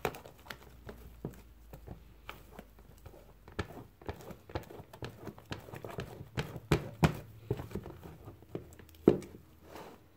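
A hand kneading and stretching freshly mixed fluffy slime of glue and shaving cream in a plastic tub: irregular sticky clicks and smacks, with a few louder ones about two-thirds through and near the end.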